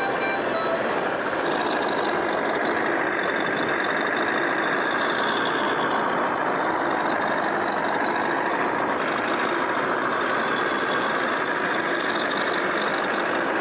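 Radio-controlled model truck running: a steady, unchanging truck-like mechanical noise.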